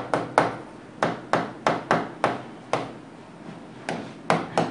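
Pen knocking against the hard glass surface of an interactive display panel as words are handwritten on it: a run of sharp taps, two or three a second, with a pause of about a second a little past the middle.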